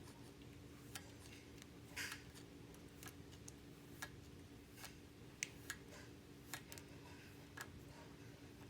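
Kinetic sand being worked: soft, irregular crackles and clicks about once a second, one slightly longer crunch about two seconds in, over a faint steady hum.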